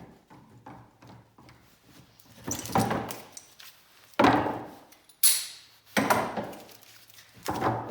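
Wooden boards being handled on a workbench: several sharp knocks and scrapes of wood on wood, the loudest about four and five seconds in.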